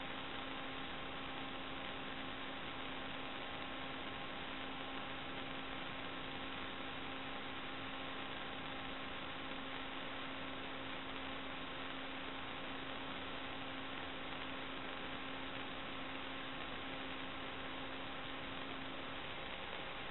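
Steady electrical hiss with several faint steady hum tones from the recording's audio line, with no sound picked up; the lowest hum stops near the end.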